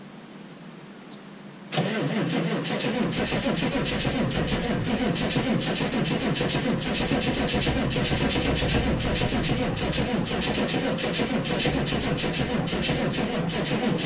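A Chevrolet pickup's 6.5-litre turbo-diesel V8 catching suddenly about two seconds in on a sub-zero cold start, then idling steadily with a rhythmic knock.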